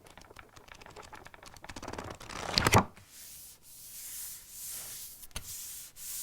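Book paper handled: pages riffled in a quick run of small flicks, ending in one louder flap about two and a half seconds in. Then paper is rubbed in several smooth, hissing strokes.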